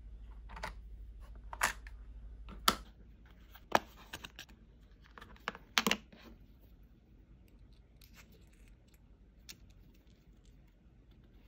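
Hand tools and a clear plastic drill-bit case being handled on a workbench: a run of sharp plastic-and-metal clicks and clacks, the loudest in the first six seconds, then softer scattered ticks while a bit is fitted into a pin vise.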